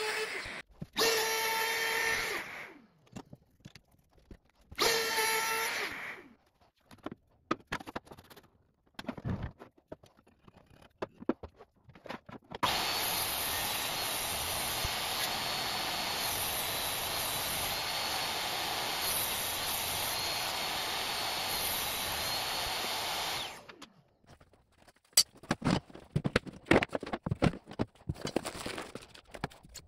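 Wood router running in three short bursts over the first six seconds, cutting along the edge of an oak board. Then a table saw ripping an oak board, a steady cutting noise for about eleven seconds that then stops, followed by scattered knocks and clicks near the end.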